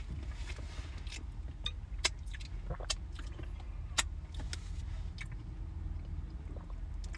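Steady low rumble of a car cabin with the engine idling, with scattered small sharp clicks and taps, the clearest about two and four seconds in.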